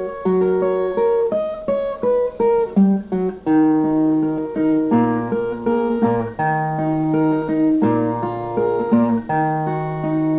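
Instrumental break played on a Brazilian viola: a plucked, picked melody runs over lower ringing bass notes, note after note without pause.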